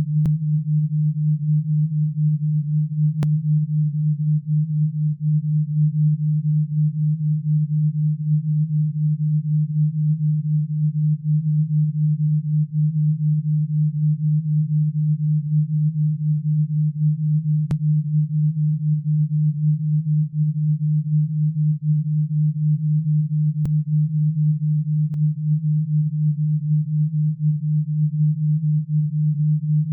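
A low, steady pure tone with a fast wobble in loudness: an alpha-wave brainwave-entrainment beat tone for tinnitus relief.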